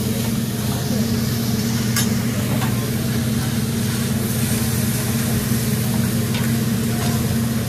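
Food sizzling and frying on a hot griddle over a steady low hum, with a few sharp clicks about two seconds in and again near the end.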